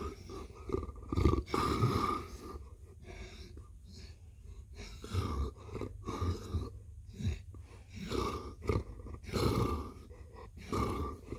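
Cat purring loudly up close, a low rumble that swells and fades in uneven pulses every second or two.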